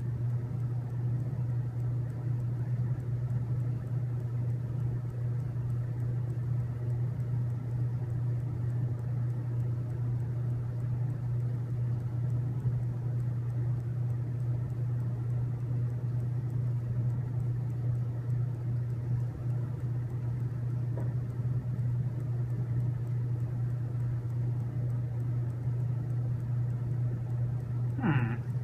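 A steady low hum with no change in level or pitch, and a short high pitched sound right at the end.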